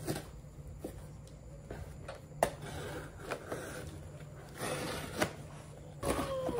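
Cardboard shipping box being opened: a small cutter slitting the packing tape and the flaps scraping and rustling, with scattered sharp clicks and taps, the loudest a snap about two and a half seconds in.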